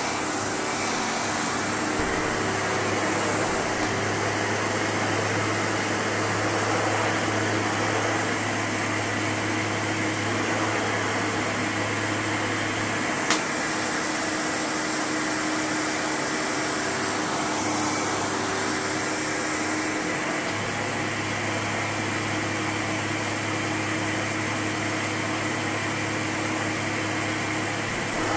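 Sebo Automatic X1 upright vacuum cleaner running steadily on carpet, with a constant high whine over its motor noise. A single sharp click comes about 13 seconds in, and its low hum drops away for several seconds after it. Its automatic brush height is not raising and lowering properly.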